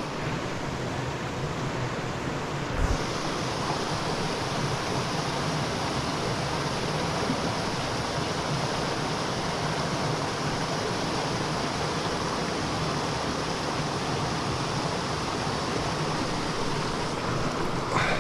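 Stream water rushing steadily, with a brief low thump about three seconds in.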